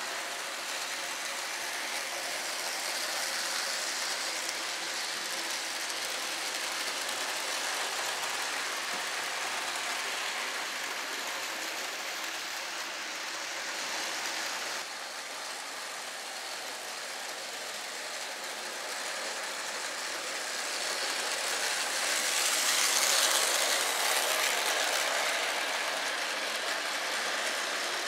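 Electric model trains running on track, a steady whirring rattle of motors and wheels on the rails. The sound changes abruptly about 15 seconds in and swells louder for a few seconds about 22 seconds in.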